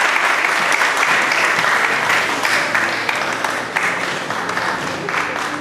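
Audience applauding, steady at first and dying away over the last second or two.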